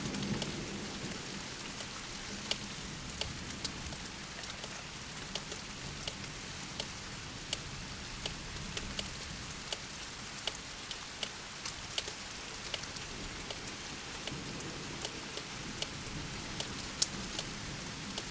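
Steady rain during a thunderstorm, with single heavy drops ticking sharply and irregularly close by, about one or two a second. The tail of a thunder rumble dies away right at the start.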